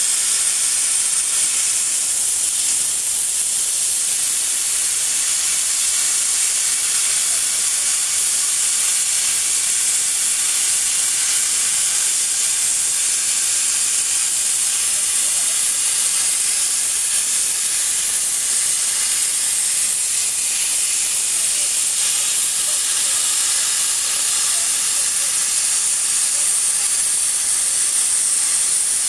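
Plasma torch of a portable CNC plasma cutting machine cutting steel plate: a steady, loud hiss of the plasma arc and its gas jet, high-pitched and unbroken.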